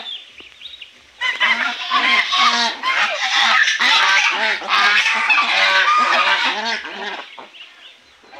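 Domestic geese honking loudly together, many overlapping calls, starting about a second in and dying down about a second before the end. Faint high peeping from goslings comes before and after the honking.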